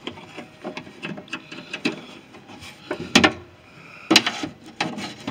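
A metal tool knocking and scraping against the inner sheet metal of a Ford E350 van's rear cargo door: a string of light clicks and knocks, with the loudest knocks about three and four seconds in.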